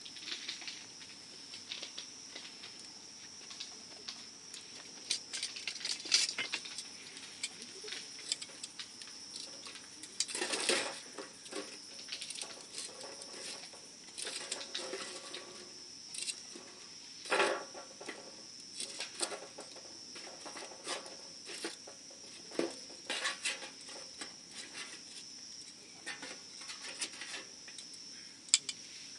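Wood campfire crackling, with irregular sharp pops and snaps, a few louder ones scattered through, over a steady high-pitched trill.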